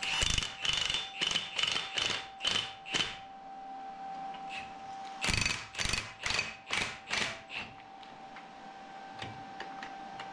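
Cordless impact driver hammering in short trigger bursts as it tightens a nut on the grinder's drive pulley, which is held with an adjustable wrench. There are about seven quick bursts, a pause of about two seconds, then about six more.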